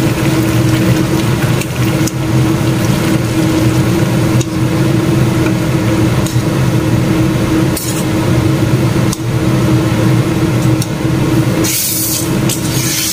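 Coconut milk poured from a carton into a steel pot of young jackfruit and stirred in with a metal ladle, with a few sharp knocks of the ladle against the pot, over a steady low hum. Near the end a loud hiss starts.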